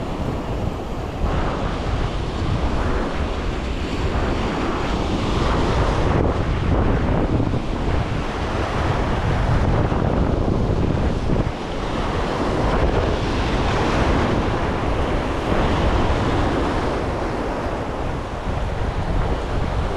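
Waves washing in on the shore and wind buffeting the microphone, a continuous rush that swells and eases every few seconds, with a heavy low rumble from the wind.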